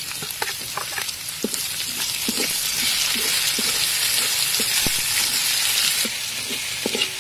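Chopped garlic, sliced lemongrass, shallots and chili sizzling in hot oil in a large wok, stirred with a metal spatula that clicks and scrapes against the pan. The sizzle grows louder about three seconds in and eases about a second before the end.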